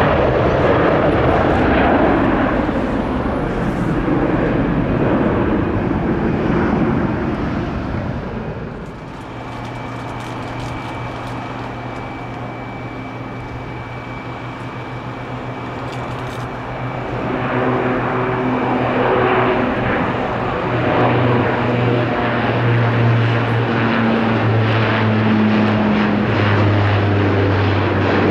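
Airliner engine noise: a passing aircraft falling in pitch, cut off suddenly about eight seconds in. Then another aircraft's engines hum steadily with a thin high whine, growing louder from about seventeen seconds.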